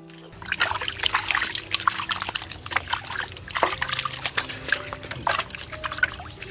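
Water splashing and dripping as hands are rinsed and rubbed under it, in quick irregular splashes that start just after the beginning.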